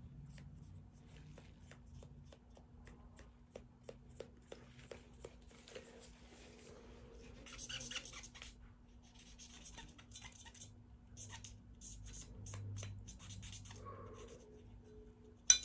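Cotton swab scrubbing inside a Glock 19 pistol slide: faint scratchy rubbing with small clicks, and runs of quicker scrubbing strokes from about seven to eleven seconds in. A single sharp click near the end.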